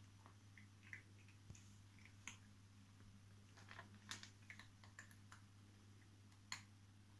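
Near silence: a faint steady low hum with scattered soft clicks and ticks.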